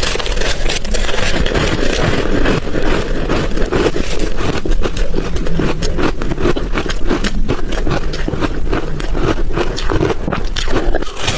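Close-miked chewing of soft, crunchy ice chunks: a continuous run of dense crunches and crackles as the ice is bitten and ground between the teeth.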